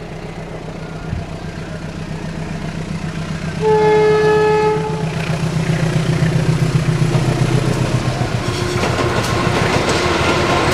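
Diesel-electric locomotive approaching with its engine running at a steady low rumble that grows louder, sounding one chord-like air-horn blast of about a second roughly four seconds in. Near the end, wheels clatter over the rail joints as the locomotive and coaches pass close by.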